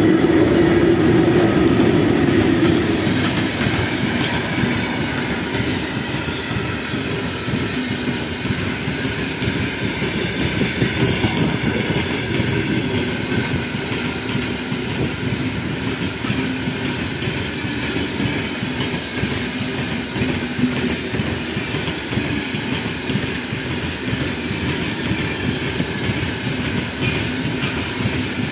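VL15 electric locomotive going by close at speed, loudest in the first two or three seconds, followed by the steady rumble and clatter of a very long train of freight gondola wagons rolling past.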